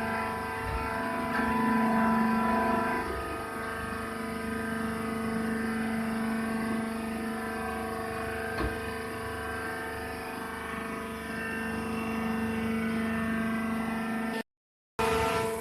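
Horizontal hydraulic baler's motor and hydraulic pump running with a steady hum, with a single click about two thirds of the way through.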